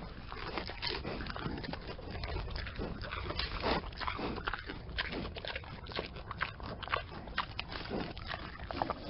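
Pigs eating: irregular crunching and chewing snaps, many short ones close together.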